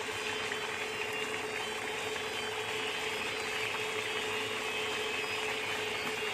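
Pot of spicy-sour asam pedas curry broth boiling, a dense, steady fine bubbling and crackle, over a steady hum.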